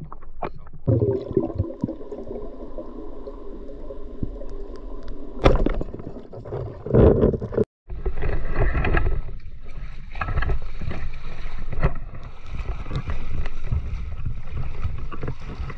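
Water sloshing and splashing close to the microphone as a spearfisher in a wetsuit moves at the water's surface and at the edge of a murky lake, with a few sharp knocks; the sound drops out for an instant about halfway through.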